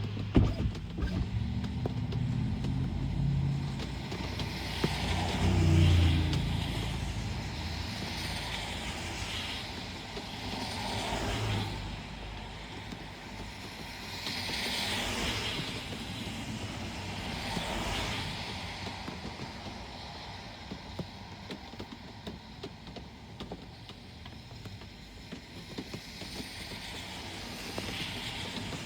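Rain and road traffic: cars pass one after another, each tyre hiss on the wet road swelling and fading, with an engine rumble loudest in the first few seconds and rain pattering under it.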